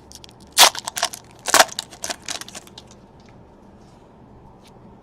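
Trading card packaging crinkling and crunching as it is handled and torn open, with two louder crunches about half a second and a second and a half in; the crackling stops after about three seconds.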